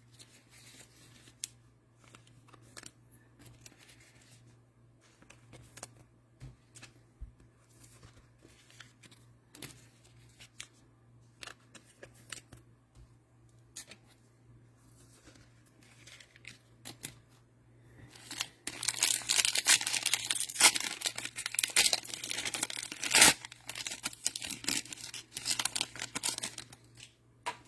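Faint scattered clicks of trading cards being handled, then, about two-thirds of the way in, several seconds of loud crinkling and tearing as a cellophane-wrapped trading card pack is ripped open.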